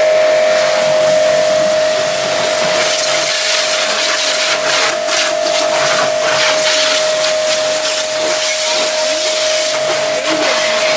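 Electric high-pressure washer running: a steady motor whine under the hiss of the water jet spraying against a car's body panels, the spray noise surging and falling as the jet moves.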